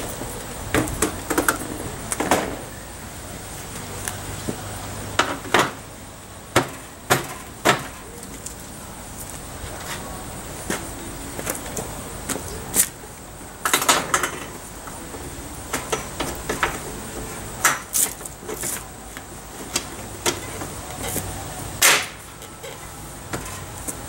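Irregular metal clanks and knocks as the steel-drum sections, lids and large pots of a barrel rocket stove are lifted off and set down, some strikes sharp and ringing.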